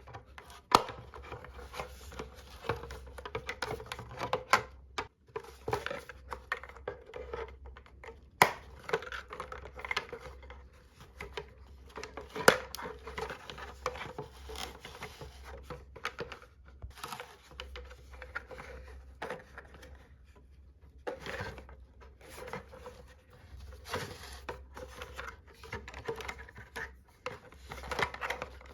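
Toy packaging and small plastic toy pieces being handled: crinkling and rustling with frequent sharp taps and clicks, the loudest about 8 and 12 seconds in, over a faint low hum.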